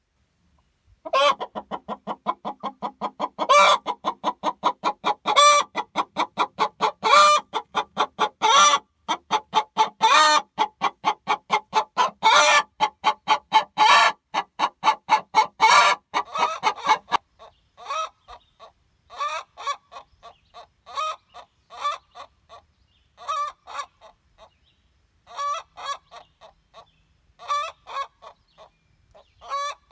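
A hen singing her egg song just after laying: a fast run of clucks broken every second or two by a louder, drawn-out squawk. From about 17 seconds in the calls thin out into short, separate bursts with gaps between them.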